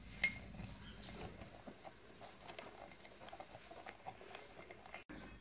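A small spoon stirring sugar into milk in a bowl: faint, irregular light ticks and scrapes of the spoon against the bowl.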